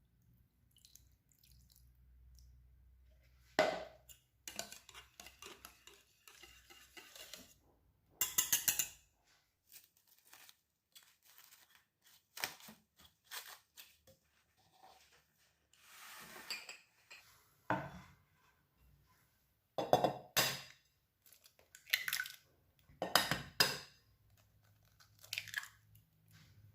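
Kitchen food-preparation sounds: irregular knocks and clinks of utensils and bowls, with brief scraping and rustling between them.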